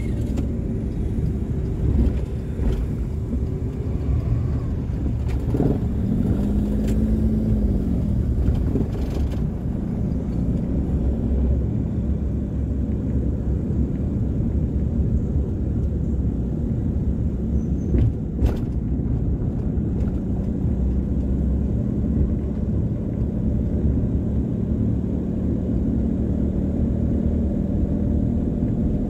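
Steady low rumble of a car being driven along a city road: engine and tyre noise. A short tone rises and falls about six seconds in, and a couple of sharp clicks come at around eighteen seconds.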